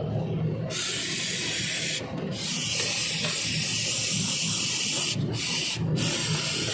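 Long hissing blasts of pressurised gas, broken off briefly about two seconds in and twice near the end, over a low steady hum.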